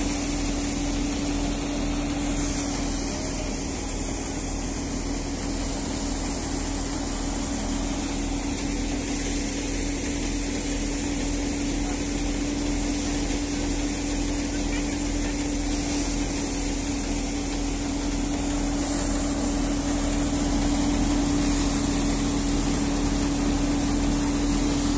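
Tractor-powered paddy thresher running steadily while paddy bundles are fed through it: a continuous machine drone with a steady hum, a little louder in the last few seconds.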